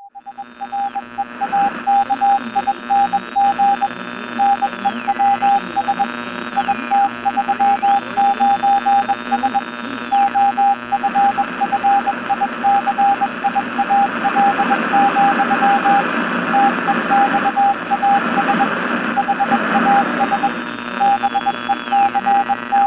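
Morse code sent as a steady beeping tone, keyed in a running pattern of dots and dashes, over a bed of radio-like hiss and static. High whistling tones slide down in pitch now and then, and the hiss grows denser from about halfway through.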